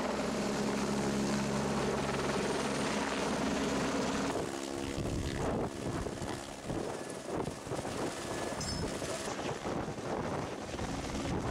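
Helicopter rotor and engine drone, steady, while it carries a log slung on a line beneath it. About four seconds in, the sound cuts to a fainter, rougher background with scattered knocks.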